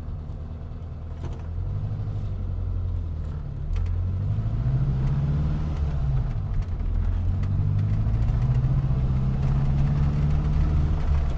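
Car engine pulling under acceleration: its note rises, drops back about six seconds in as it changes up a gear, then climbs again and holds steady.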